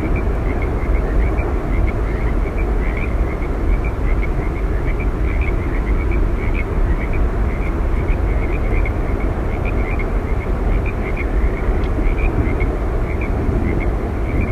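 Steady roar of Yosemite Falls, a constant rushing noise with no change in level, with short high chirps repeating over it.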